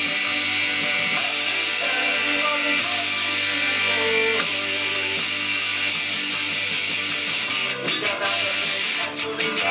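Electric guitar, a 1998 Rickenbacker through a Vox AC30 valve amp, strumming ringing chords, with short choppy strums near the end.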